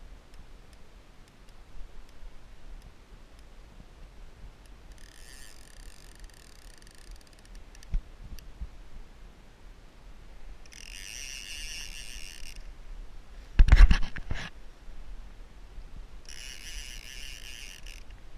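A fishing reel whirring in three bursts of about two seconds each, with a cluster of loud knocks about fourteen seconds in.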